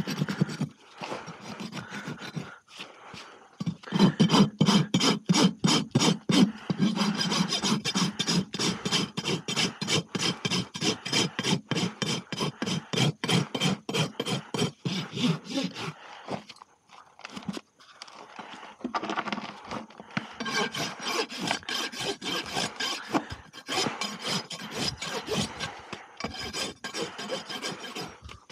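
Farrier's hoof rasp filing a horse's hoof in rapid back-and-forth scraping strokes, about two a second, with a break of a few seconds past the middle.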